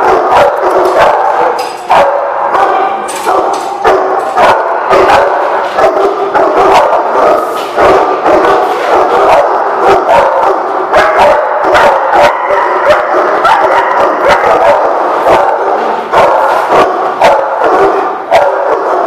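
Dogs barking and yipping in play, a loud, unbroken din with many sharp barks.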